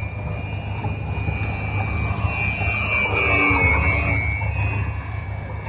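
Radio-controlled aerobatic plane's motor and propeller whining in flight. It grows loudest around the middle, where a lower tone dips and rises again.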